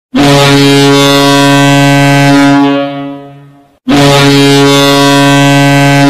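Toronto Marlies ice hockey goal horn sounding two long, deep, steady blasts. The first fades out after about three seconds, and the second begins about four seconds in.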